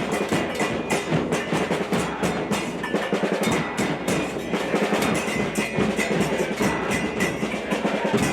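A football supporters' group's drums and percussion in the stands, beating a fast, steady rhythm of about four strikes a second.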